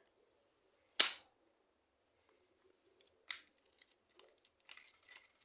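Sharp snap of hard parts about a second in, a second smaller snap a couple of seconds later, then light clicks and taps: an Electrolux washing machine's spin-drive ratchet assembly being pried and worked loose by hand.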